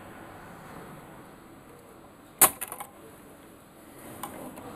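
Spring-loaded desoldering pump (solder sucker) firing on a solder joint: one sharp snap about halfway through, followed by a few small clicks and rattles as it draws up the molten solder.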